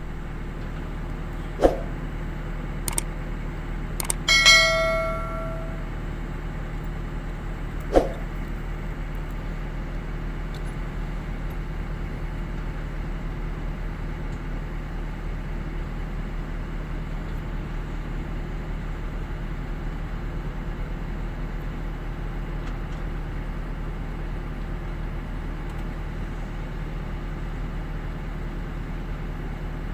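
Heavy-equipment diesel engine running at a steady low hum. A few sharp metallic clangs sound in the first eight seconds; the loudest, about four seconds in, rings on briefly.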